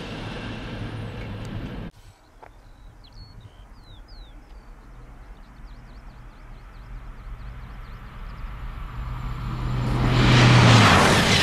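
A Ouigo TGV Duplex high-speed train approaching at speed, its noise swelling over several seconds to a loud rush near the end, with a steady low hum rising under it. Before that, faint bird chirps sound over a quiet field, and at the start the tail of a passing TGV Lyria fades and is cut off suddenly about two seconds in.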